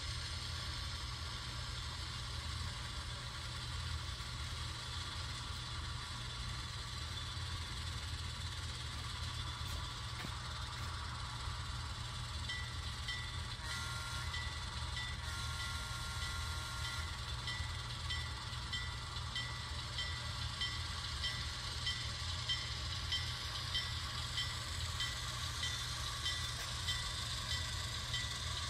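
Sound decoder of an HO scale Rapido 44-ton switcher model playing a diesel engine running steadily. Its horn blows a short toot about 14 s in, then a longer blast of about two seconds. A bell dings a little faster than once a second from about 12 s on.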